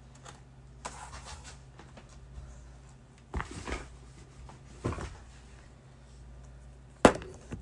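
Handling noise from a phone being propped back up: scattered rustles and light knocks, with one sharp knock about seven seconds in, over a faint steady low hum.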